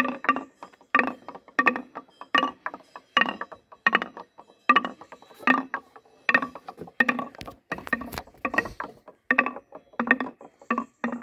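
Two balls clattering down a wooden marble-run tower: a quick series of sharp knocks with a short ringing tone as they drop from chute to chute, stopping near the end.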